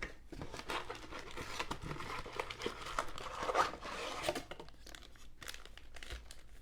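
Crinkling and tearing of trading-card packaging: a Donruss basketball blaster box being torn open and its foil-wrapped packs pulled out, in a run of irregular crackles that thins out over the last couple of seconds.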